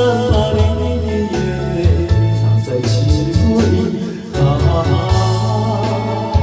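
Backing track of a slow Mandarin pop ballad playing: held bass notes, a sustained melody line and a steady drum beat.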